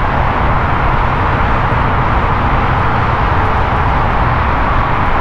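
Steady roar of freeway traffic, an even, unbroken rush of tyre and engine noise.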